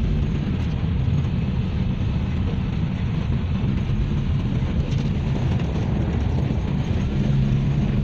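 Steady rumble of a car driving along, engine and road noise heard from inside the cabin.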